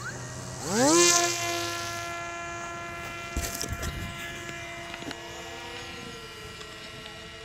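Parrot Disco flying wing's electric pusher motor spinning up at launch: a whine that rises quickly about a second in, then holds a steady pitch. A few brief low thumps come near the middle.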